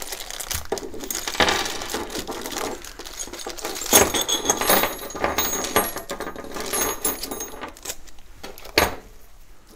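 Plastic parts bag crinkling as it is opened, with small metal nuts, washers and bolts clinking and ringing against each other and onto the bench; the sharpest clinks come about four seconds in and again near the end.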